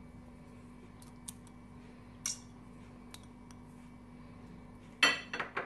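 Soaked chana dal being scraped with a wooden spoon out of a glass bowl into a steel cooking pot: faint clicks and one short scrape, then a louder burst of kitchenware clatter near the end. A steady low hum runs underneath.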